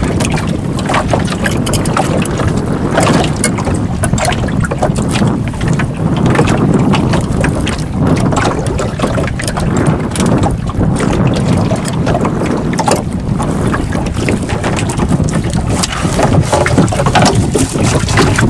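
Wind rumbling on the microphone and water slapping against a small boat, with scattered knocks and splashes.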